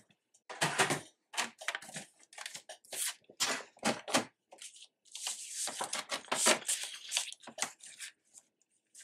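A sheet of patterned craft paper is handled, giving short rustles and scrapes as it is lifted, shifted and slid into place on a paper trimmer. There is a denser stretch of rustling a little past the middle.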